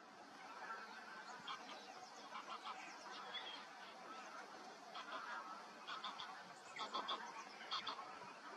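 A flock of birds calling: many short, overlapping calls over a steady background hiss, growing busier in the second half.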